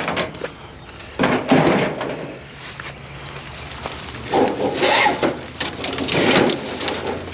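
Knocking, rattling and scraping of discarded scrap being handled and wrenched apart, in three or so bursts of clatter.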